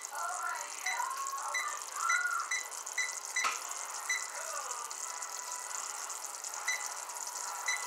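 Kitchen timer beeping, short electronic beeps about two a second, signalling that the set time is up. The beeps stop with a click about three and a half seconds in and come back briefly near the end, over the steady hiss of a saucepan of sugar syrup bubbling at a simmer.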